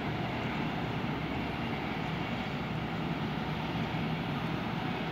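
Steady drone of distant highway traffic, with engines and tyres blending into an even rumble.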